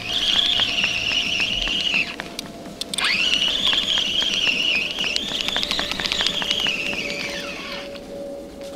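Spinning reel being cranked to wind in a feeder rig: a whirring whine with fine rapid clicking. It runs about two seconds, stops briefly, then winds up again for about five seconds and slows to a stop near the end.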